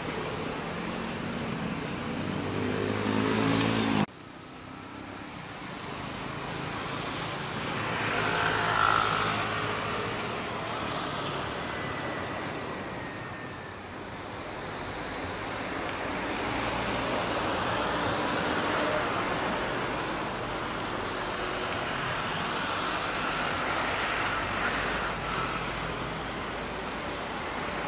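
Jet airliner engines: an Airbus A320's engines running on the runway, cut off sharply about four seconds in, then a Boeing 737-800's CFM56 turbofans on approach with a faint whine, loudest as it passes about nine seconds in, then running again during its landing roll.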